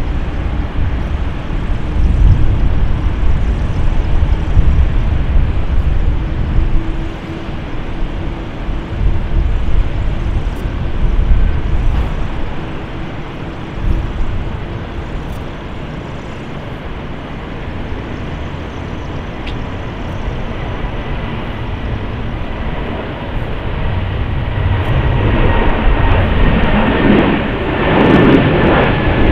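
Airbus A320neo jet engines at takeoff power during the takeoff roll and lift-off, a steady jet roar with wind buffeting the microphone in heavy gusts. The roar grows louder and brighter in the last few seconds as the airliner climbs out past, with steady engine whine tones over it.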